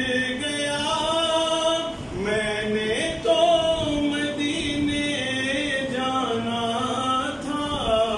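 A man singing a naat, an Urdu devotional poem, unaccompanied, in long held notes that bend and glide between pitches.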